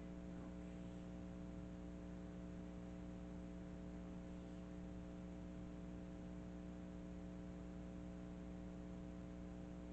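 Steady electrical hum made of several unchanging tones over a low background hiss, with no speech.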